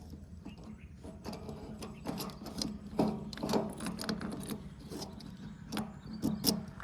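A diesel engine running steadily at low revs, with irregular clanks and knocks over it.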